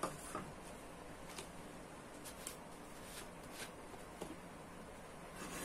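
Faint, scattered clicks and taps of a plastic soy sauce dispenser bottle with a screw cap being handled, over steady room hiss.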